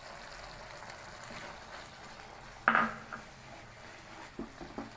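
Wooden spatula scraping spice powder out of a ceramic bowl and stirring a thick paste in a frying pan, with one sharp knock a little past halfway and two lighter taps near the end.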